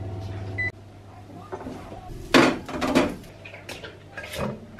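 Zanussi electric oven's timer gives a short beep with its fan humming, and the hum stops less than a second in. Then a few clattering knocks of a metal utensil and plate as food is taken from the oven and served, the loudest about two and a half seconds in.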